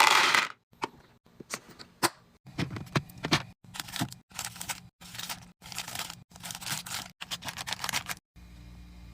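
Quick series of short handling sounds, with packaging crinkling and tearing, scrapes and clicks, cut together with abrupt gaps between them. The loudest is a rustle right at the start. A steady low hum takes over near the end.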